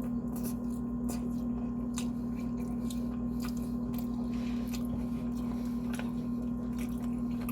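Close-miked chewing: many small, wet, irregular clicks and squishes of a mouth eating, over a steady electrical hum.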